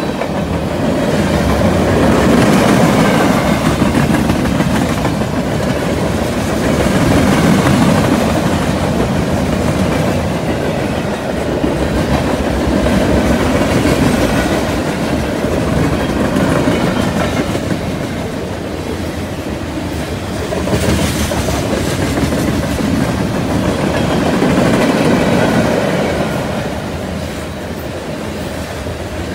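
Freight train's boxcars and covered hopper cars rolling past, a continuous rumble and clatter of steel wheels on the rails that swells and eases every few seconds as the cars go by.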